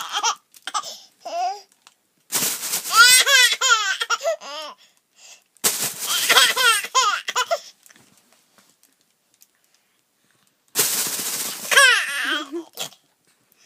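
Plastic crinkling in short bouts, each drawing a young child's high-pitched laughter; three bouts of crinkling and giggling with pauses between them.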